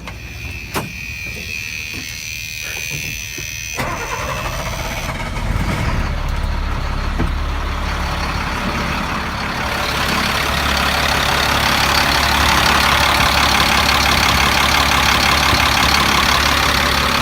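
Diesel engine of a 1999 Freightliner truck restarting after stalling: a few clicks, then cranking from about four seconds in, catching around five and a half seconds, and running steadily, louder from about ten seconds in. The owner puts the hard starting and stalling down to a bad fuel pressure sensor.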